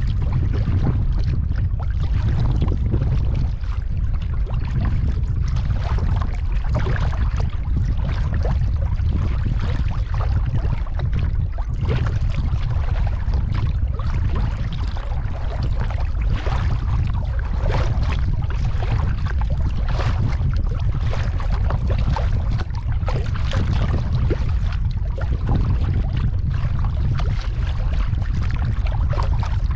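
Kayak paddling on open water: irregular splashes of the paddle and water slapping the hull. Under it runs a steady low rumble of wind on the microphone.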